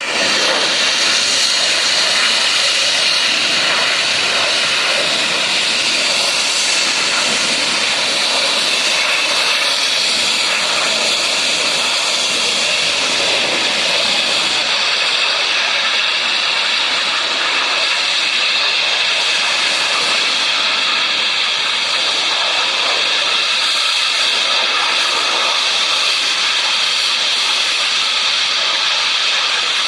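Compressed gas escaping from a leaking gas tanker: a loud, steady hiss that does not let up.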